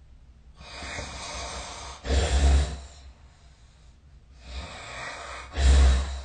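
A sleeping person snoring: two breaths about three and a half seconds apart, each a softer rushing breath followed by a loud, deep snort.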